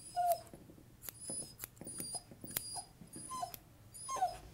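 Tibetan Terrier puppy whimpering in several short, high whines that drop in pitch, while grooming scissors snip around its feet with sharp metallic clicks.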